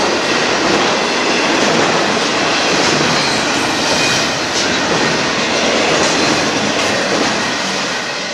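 Union Pacific intermodal freight train's cars rolling past: a steady, loud noise of steel wheels on the rails, easing off slightly near the end.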